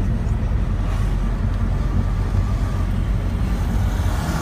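Steady rumble of wind buffeting the microphone mixed with engine and road noise from a moving vehicle.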